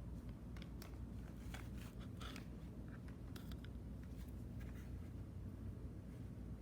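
Faint, irregular crinkling and small clicks of a cassette's plastic wrapping being handled and unwrapped, heard over a low steady hum.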